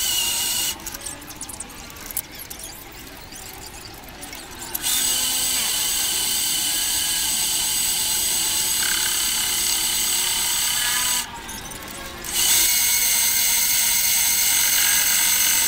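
Mini metal lathe turning the corners of a square aluminium (dural) block spinning in a four-jaw chuck, the cutting tool making a loud, steady, high-pitched cutting noise. The noise drops to a quieter running sound about a second in for some four seconds, and again for about a second around eleven seconds in.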